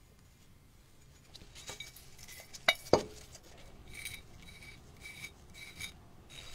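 Hand work on an antique teapot: two sharp knocks a quarter-second apart, then a run of short, even rubbing strokes, each with a faint squeak, about one every half second.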